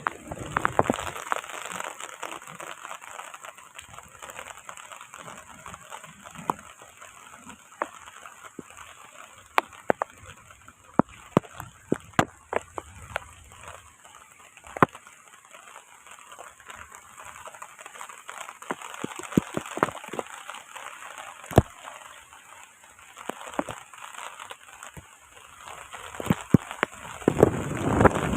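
Heavy rain pouring, a steady hiss with many scattered sharp drop impacts, swelling louder near the end.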